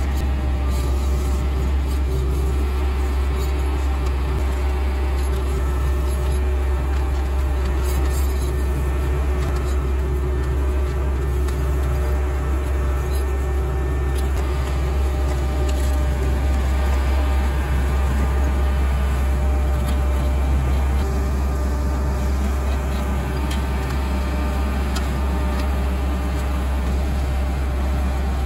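Sumitomo HA45W asphalt finisher's diesel engine running steadily during paving, a constant low drone with no change in speed.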